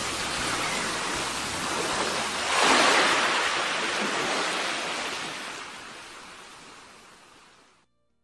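Ocean waves washing in, with a bigger swell about two and a half seconds in, then fading out.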